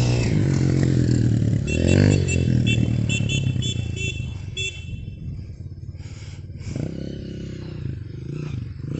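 Motorcycle engine running at a steady low idle, a little quieter in the second half. Short high-pitched chirps come in quick succession between about two and five seconds in.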